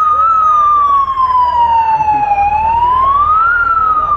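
Police siren sounding a slow wail: a single tone sliding down for about two seconds, climbing again, then starting to fall near the end.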